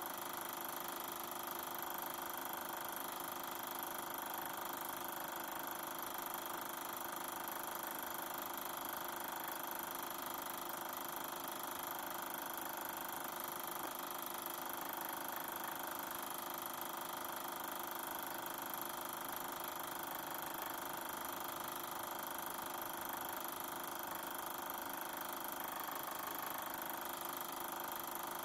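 Super 8 film projector running steadily, the even whir of its motor and film mechanism.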